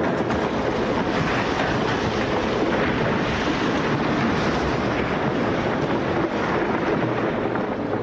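Radio-drama sound effect of a stone lighthouse tower being torn down by the sea monster and collapsing: a loud, dense, continuous rumbling crash.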